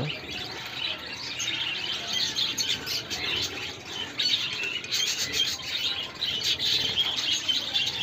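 A flock of budgerigars chattering, with many small high chirps overlapping continuously, busier from about five seconds in.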